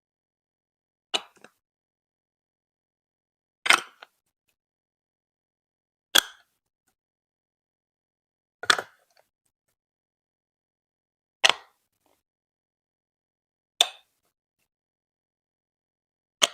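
Lego Duplo plastic bricks being clicked into place one at a time: a sharp plastic click about every two and a half seconds, each with a small second tap just after it, and silence between.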